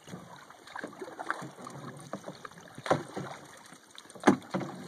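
Canoe paddles working on calm water: soft dips and drips of the strokes, with two sharper paddle hits about three and four seconds in, the second the loudest.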